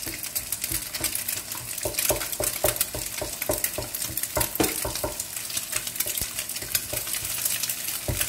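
Chicken eggs sizzling in oil in a nonstick frying pan while a wooden spatula stirs and breaks them up. The spatula makes frequent short scrapes and knocks against the pan over the steady hiss.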